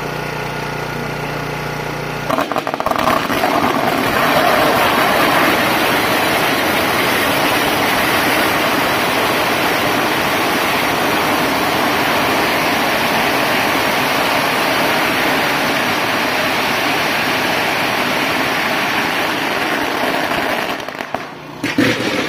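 A long string of firecrackers going off in a dense, continuous crackle. It starts about two seconds in and stops about a second before the end. Before it there is a steady engine hum.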